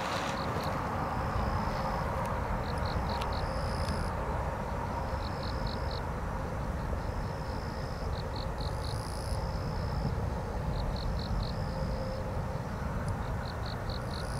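Steady low rumble of a distant jet airliner's engines after landing, with an insect in the reeds calling over it: a thin, high held buzz followed by three or four short pulses, repeating about every two and a half seconds.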